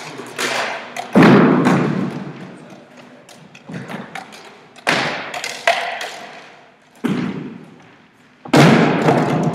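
A series of heavy thuds, each echoing on through a large hall: the loudest about a second in and another near the end, with smaller knocks between.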